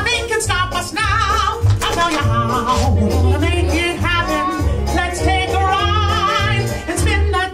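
Upbeat cartoon song played through the attraction's speakers: high character voices singing with vibrato over a bouncy band and a pulsing bass line.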